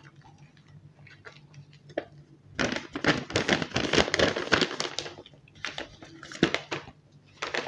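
Paper and plastic mailing packaging crinkling and rustling as it is handled, in two stretches of a couple of seconds each, after a few light ticks.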